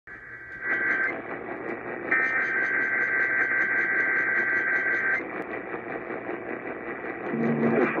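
AM radio broadcast through a small portable radio's speaker: steady static hiss with Emergency Alert System header data tones, a short warbling burst about a second in and a longer one of about three seconds from two seconds in. A voice starts reading the alert near the end.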